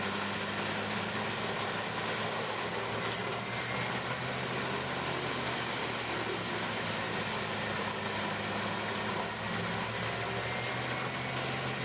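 A large engine running steadily at a constant speed, an even low hum with no changes in pitch or load.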